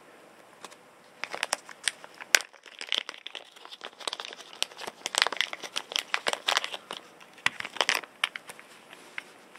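Plastic packaging crinkling and clicking as it is handled, in irregular bursts, with one sharp click about two and a half seconds in and the busiest crinkling in the second half.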